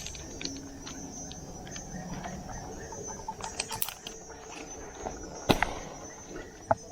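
A steady high insect drone with scattered clicks and knocks, a sharp knock about five and a half seconds in and another near the end.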